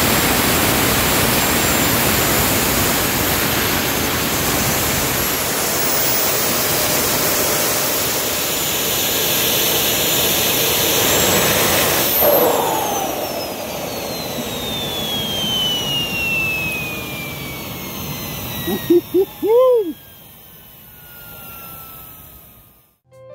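Homemade jet engine running with a loud rushing noise and a high turbine whine. About halfway through, the noise drops and the whine falls steadily in pitch as the engine shuts down and the turbine spools down.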